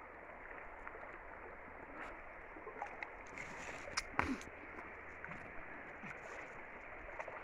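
Faint, steady rush of river water flowing, with a couple of soft knocks about four seconds in.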